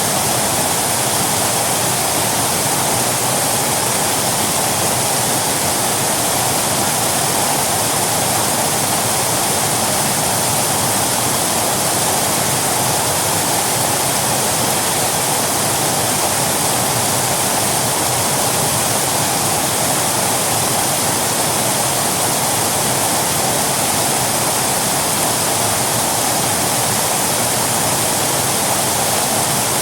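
Waterfall: a steady, even rush of falling and splashing water.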